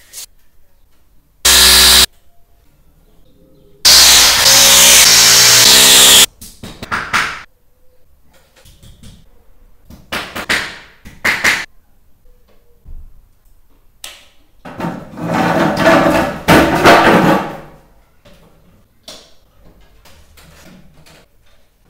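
Overhead ceiling work with a power drill: two loud runs of motor whirr that start and stop abruptly, the second about two seconds long with its pitch shifting in steps as the speed changes. Short knocks and scrapes follow, then a longer, rougher burst of tool noise.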